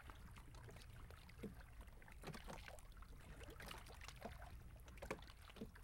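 Faint water sounds of many canoes being paddled: irregular small splashes of paddles dipping into the sea over a soft wash of water.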